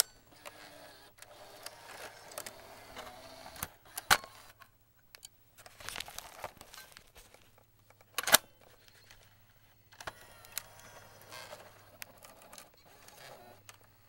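Cassette tape handled, with plastic clicks and clacks and some rattling and scraping between them. The sharpest clack comes about eight seconds in. A low steady hum lies underneath.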